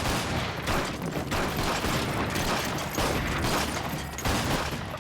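Sustained, irregular gunfire of a battle, a few sharp shots a second.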